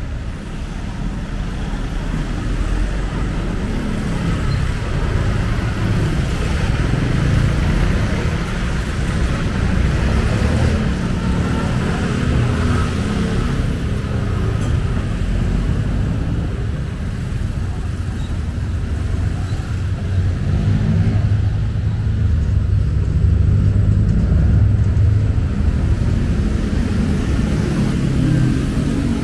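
Steady city road traffic: vehicle engines and tyre noise in a continuous low rumble that swells as vehicles pass.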